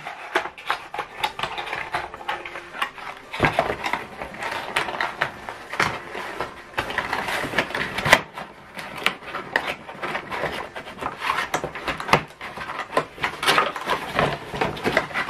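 Cardboard packaging being handled: a small cardboard box is pulled from a larger carton and its flaps opened, a steady run of rustling and scraping with a few sharper knocks.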